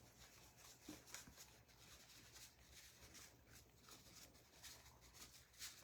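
Near silence: room tone, with a few faint soft ticks about a second in and again near the end.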